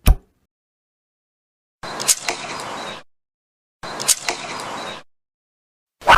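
Bow-and-arrow sound effects: a brief low thump, then two nearly identical shots about two seconds apart, each a sharp snap or two followed by about a second of hissing, and a sharp hit near the end.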